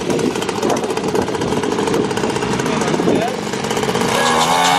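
Small petrol engine of a children's mini dirt bike running, with rapid, even firing.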